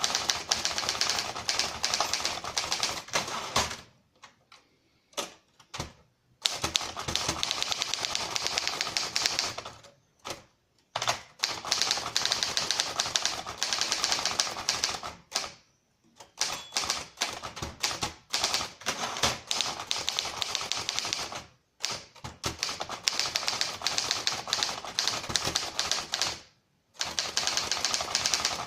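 1939 Triumph Standard 12 manual typewriter being typed on: fast runs of key strikes, each a sharp clack, broken by several short pauses of a second or two.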